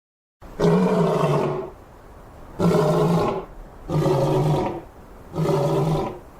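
Lion roaring: four roars in a row, each about a second long, with a lower rumble between them.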